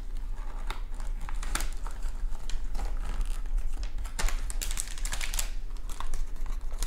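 Crinkling and rustling of a motherboard's metallic anti-static bag and its cardboard packaging insert being handled, in irregular crackles over a steady low hum.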